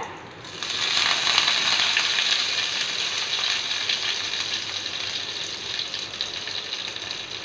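Fresh curry leaves dropped into hot oil for a tempering, sizzling. The sizzle builds about half a second in, is strongest for the next second or two, then slowly dies down.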